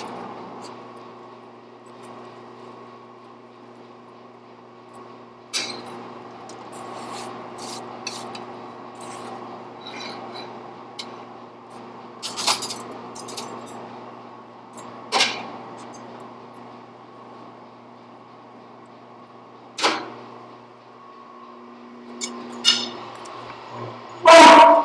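A steady motor hum with a few sharp metallic clinks of tools. The hum stops shortly before the end, and a loud burst of sound begins right at the end.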